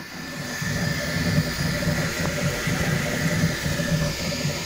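Bambu Lab 3D printer running a print: the print head's motors buzz in quick, uneven pulses as it moves, over a steady hiss.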